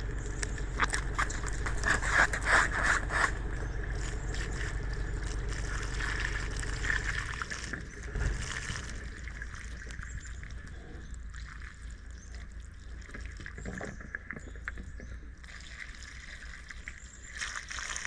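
Muddy water splashing and trickling from the open end of a black plastic water pipe as the first dirty water flushes through the line, the flow growing stronger near the end. A low rumble runs under the first seven seconds.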